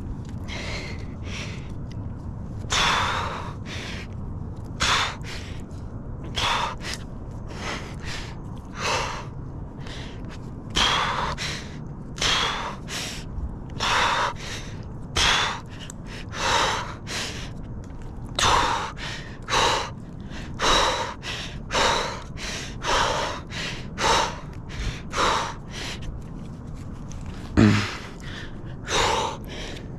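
Tree climber's heavy breathing under exertion during a branchless trunk climb: loud, sharp breaths, a few seconds apart at first and then about one a second, with a short grunt near the end.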